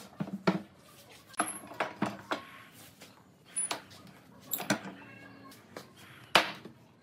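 Irregular knocks and clicks as wooden frame rails and pipe clamps are handled and set down on a workbench, some with a brief metallic ring. The sharpest knock comes near the end.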